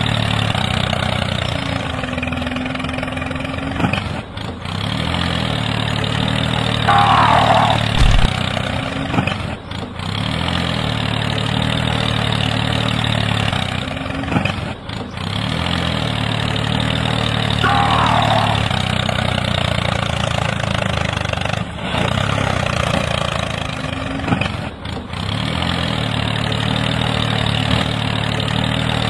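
Tractor engine running steadily at a low idle-like pitch, with a brief higher-pitched squeal twice.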